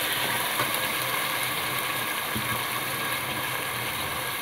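Goat meat and onions sizzling in hot oil in an aluminium pot, with a few light knocks and scrapes of a steel ladle stirring them.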